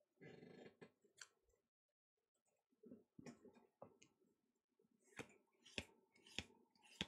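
Faint snaps and clicks of Pokémon trading cards being flicked one at a time from the front to the back of a freshly opened pack's stack. After a soft rustle at the start, the snaps come about one every half-second in the second half.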